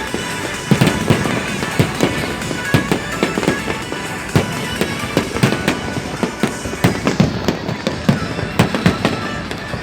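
New Year fireworks going off in rapid succession, a dense run of bangs and crackles several times a second, with music faintly underneath.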